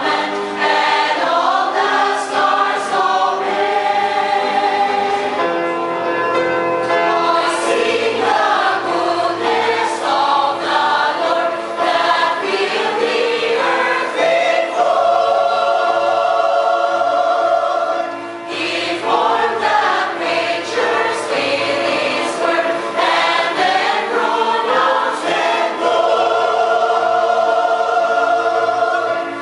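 Mixed-voice chancel choir of women and men singing in parts, with several long held chords.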